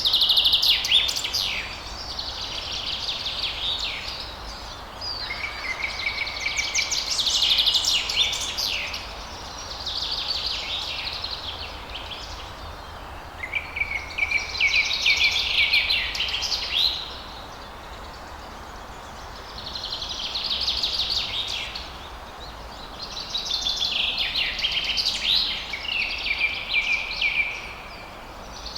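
A songbird singing repeated phrases of quick chirps and trills, each a few seconds long with short gaps between them, over the steady rush of falling water.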